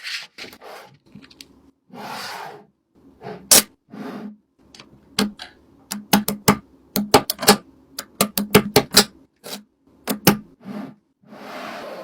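A quick run of sharp clicks and taps from small objects being handled, with short rustling, scraping swishes between them. The taps come thickest about halfway through.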